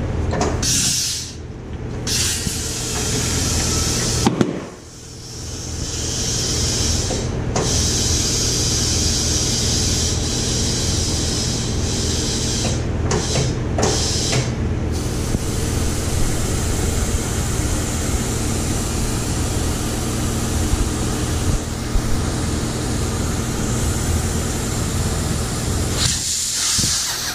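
Compressed air hissing steadily through a tire valve stem with the core removed, inflating a car tire on a steel wheel up to 35 psi. The flow breaks off briefly about two seconds in and again around five seconds, with a steady low hum underneath.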